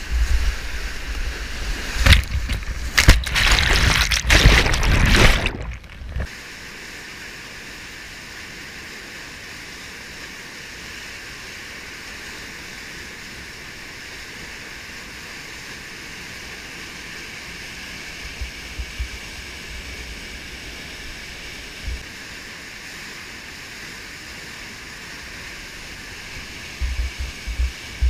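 Whitewater rapids rushing and splashing close around a kayak for about six seconds, loud and uneven with water hitting the microphone. Then the sound cuts to a steadier, quieter rush of the rapids.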